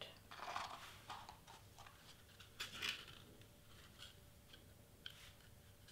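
Stiff cardstock faintly rustling and crinkling as a small paper cone is rolled and pressed between the fingers, with a few light taps; the handling is busiest in the first second and again near the middle.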